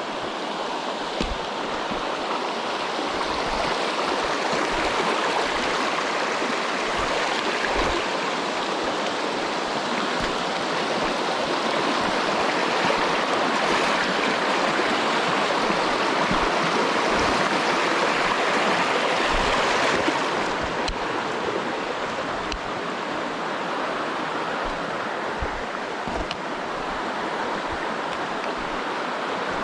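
Mountain stream rushing over rocks, a steady full sound that swells a little through the middle and eases slightly about two-thirds of the way through.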